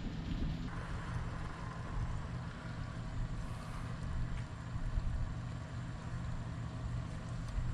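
Low, steady rumble of an idling engine, with a faint steady hum joining about a second in.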